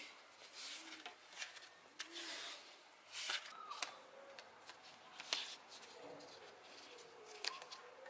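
Handlebar tape being wrapped around drop handlebars by hand: irregular short scratchy rustles and rubs as the tape is pulled taut and pressed around the bar.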